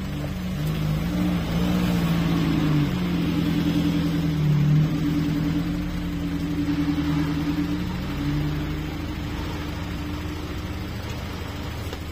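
Off-road 4x4's engine working under load, its pitch rising and falling with the throttle. It is loudest in the middle stretch and eases off near the end.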